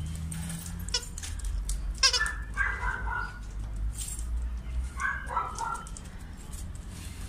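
A plush squeaky toy squeaking in two clusters of short pitched squeaks as a Boerboel chews it, with chewing clicks between.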